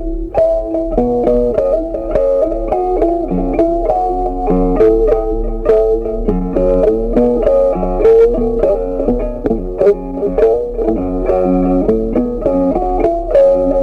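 Background music led by plucked guitar, a steady run of notes with no pauses.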